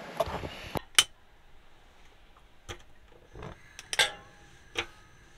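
A gas hob being lit under a metal stovetop kettle: a few sharp clicks and metallic knocks. The loudest, about four seconds in, rings briefly.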